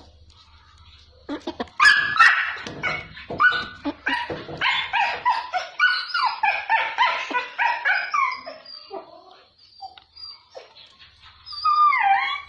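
An animal calling in a rapid run of short, high yelps for about six seconds, then one falling call near the end.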